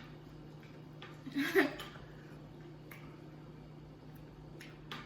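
Quiet eating sounds: a few light clicks and small mouth noises, with a brief murmur from one of the eaters about a second and a half in, over a steady low hum.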